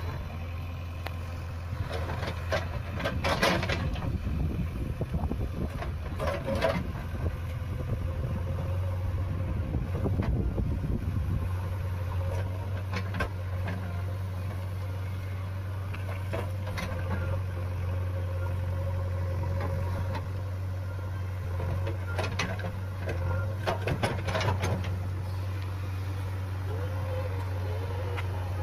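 JCB backhoe loader's diesel engine running steadily while the backhoe arm works among granite boulders, with scattered clanks and knocks of the bucket against rock.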